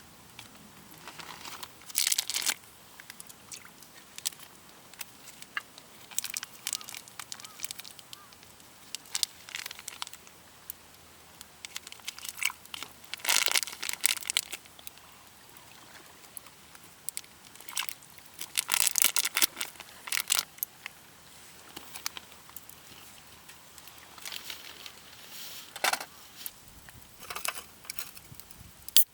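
Irregular bursts of rustling and crinkling handling noise, each lasting up to a second or so. The loudest bursts come about 2, 13 and 19 seconds in, with quieter stretches between.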